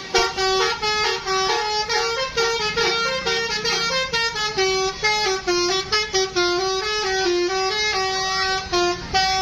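A Harapan Putra bus's telolet horn playing a long melody of quick stepped notes, changing pitch several times a second with hardly a break.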